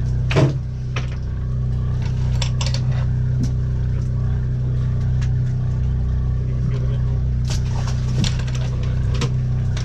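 Fishing boat's engine running with a steady low drone. Scattered sharp clicks and knocks sound over it, the loudest about half a second in.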